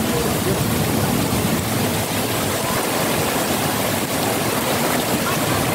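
Heavy rain pouring down steadily, an even, unbroken hiss of the downpour.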